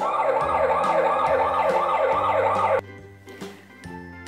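Toy police bus's electronic siren sound effect, triggered by a roof button: a fast rising-and-falling warble, about four cycles a second, that cuts off suddenly after nearly three seconds. Steady background music runs underneath.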